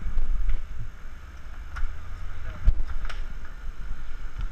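Wind buffeting an action-camera microphone, a heavy low rumble, with a few sharp clicks about two to three seconds in.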